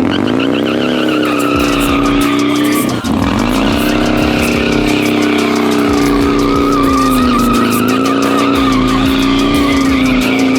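Harley-Davidson motorcycle doing a burnout or donut: the engine is held at high revs, rising and falling a little, while the rear tire squeals against the pavement.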